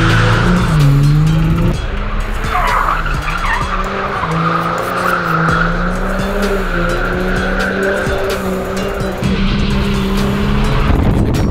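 Turbocharged Ford AU Falcon drift car sliding at high revs, its engine note rising and falling with throttle while the rear tyres squeal and skid.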